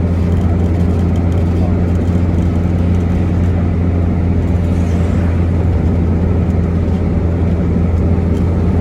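Turbocharged Chevrolet Corsa engine and road noise heard from inside the cabin while driving: a steady low drone with no clear rise in revs. The driver says the engine is misfiring under throttle and takes it for a lean mixture.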